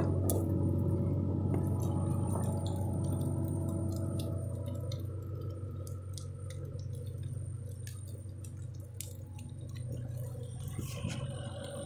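A diesel engine idling steadily with a low hum, easing off somewhat in loudness partway through, with scattered faint clicks over it.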